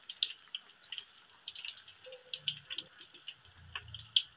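Thinly sliced Nam Wa banana frying in hot oil in a wok: quiet sizzling with irregular small crackles and pops.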